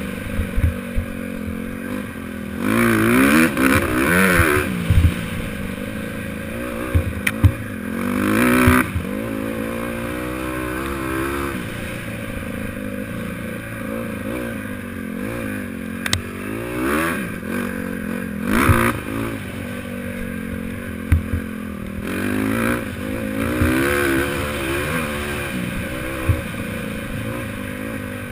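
Honda CRF150R dirt bike's single-cylinder four-stroke engine revving up and down along a trail, its pitch rising and falling with the throttle, with several louder full-throttle stretches and scattered short knocks from bumps.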